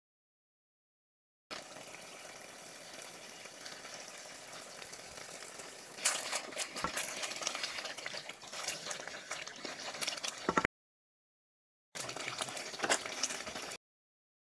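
A pot of thick chicken stew simmering with a soft steady bubbling, then a wooden spoon stirring through it from about six seconds in with crackling pops and clicks. The sound cuts out dead at the start and again for about a second near the end.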